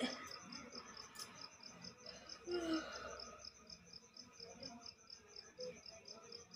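Faint, steady chirping of crickets, an even rapid pulse of about five chirps a second. A brief low-pitched sound comes about two and a half seconds in, with a couple of faint clicks.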